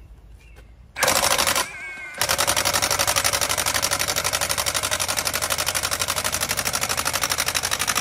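Heavy-duty cordless impact wrench hammering rapidly as it screws a steel ground pile into the soil through a long extension bit. It starts about a second in and lets up briefly with a whine. Then it hammers steadily under the load of the pile.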